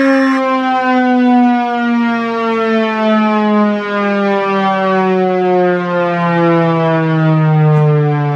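Federal Signal Thunderbolt siren running on a short test, having just reached top pitch and now winding down in one slow falling wail. Its loudness swells and fades as it goes.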